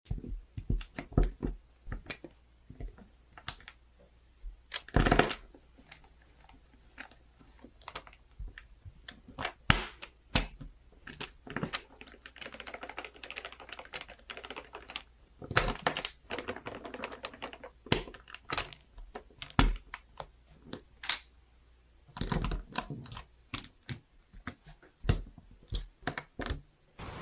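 Plastic LEGO-style bricks being handled and pressed together on a baseplate: irregular sharp clicks and snaps, with a few louder clusters of rattling clicks. About halfway through comes a stretch of soft rustling.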